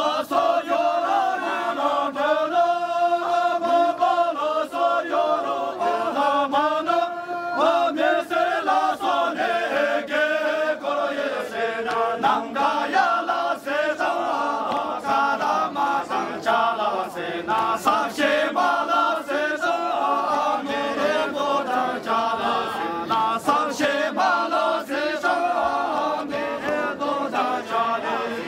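A group of men singing a syabru song together in a chanted, unison style, the voices held in long sustained lines, with frequent short taps under the singing.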